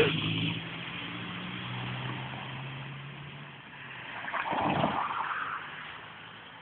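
Motor vehicle engine noise: a loud passing sound fades away in the first half-second, a steady low engine drone runs on until about three and a half seconds in, and a second swell of vehicle noise rises and fades around four to five seconds in.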